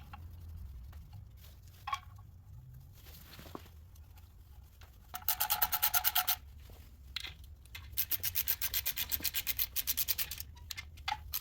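Hand ratchet clicking in two quick runs of rapid, even clicks, about ten a second, as bolts are run in snug. A few light metal knocks come between the runs.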